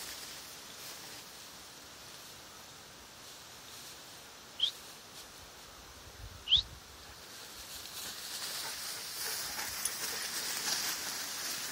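A bird gives two short rising chirps about two seconds apart, over faint rustling of tall grass that grows louder in the last few seconds.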